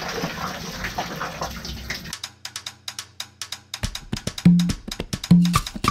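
Water pouring and splashing out of a clear plastic parts box full of screws for about two seconds. Then it cuts to upbeat Latin-style music with fast percussion clicks, and a bass line comes in about halfway through.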